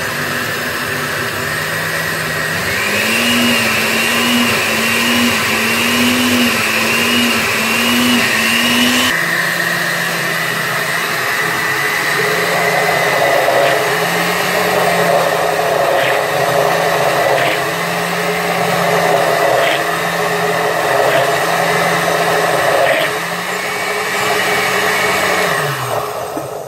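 Osterizer countertop blender running, blending a thick turmeric and pepper paste. Its motor pitch steps up a few seconds in, drops back suddenly about nine seconds in, and wavers up and down in a regular cycle before the motor cuts off near the end.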